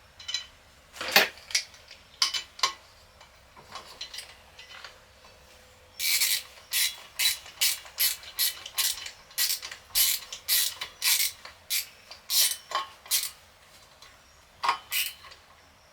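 Sharp mechanical ratcheting clicks as a monitor stand is fitted together: a few scattered clicks, then about six seconds in a steady run of about two clicks a second, and two last clicks near the end.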